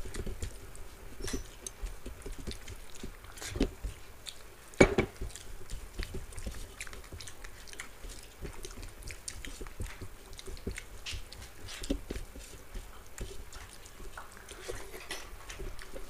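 Close-up eating sounds of two people eating rice and vegetable curries with their hands: chewing, and fingers mixing rice on steel plates, with many small clicks. A single sharper knock comes about five seconds in.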